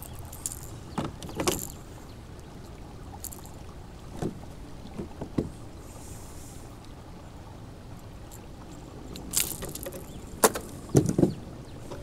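Scattered knocks and clicks as a caught bass and fishing gear are handled in a plastic kayak, with a cluster of louder knocks near the end, over a low steady background hiss.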